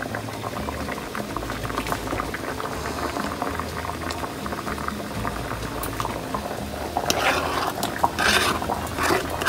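A pot of sancocho stew at a rolling boil, bubbling steadily. From about seven seconds in, pieces of cut longaniza sausage are tipped off a plastic cutting board into the boiling broth, making a run of louder splashes and plops.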